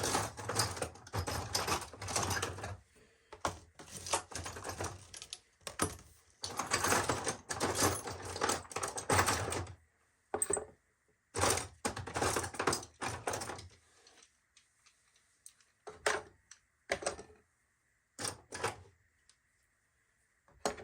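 Hand tools clattering and clicking against each other and the toolbox drawer as they are picked through and set in place: dense runs of rattling for about fourteen seconds, then a few separate clicks and knocks.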